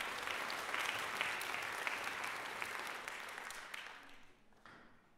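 Audience applauding in an auditorium, the clapping dying away about four seconds in, with a few last scattered claps near the end.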